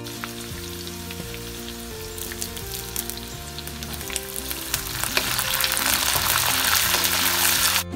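Tempering of chillies, peanuts and dals sizzling in hot oil in a metal kadai, with a spoon clicking against the pan as it is stirred. The sizzle grows louder and crackles from about halfway through, as fresh curry leaves go into the oil.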